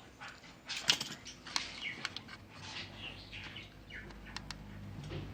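Small birds chirping in the background, with scattered light clicks and rustles from hands handling wires and parts.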